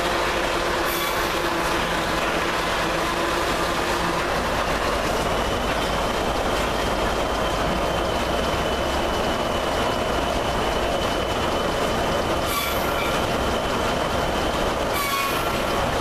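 Sawmill machinery with a large circular head saw running, a loud steady mechanical din. A high whine holds through the middle, and a few short hisses cut in.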